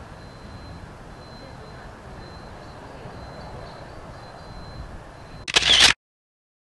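Faint outdoor background by the river. Near the end comes one loud, sharp camera shutter click lasting about half a second, and then the sound cuts off.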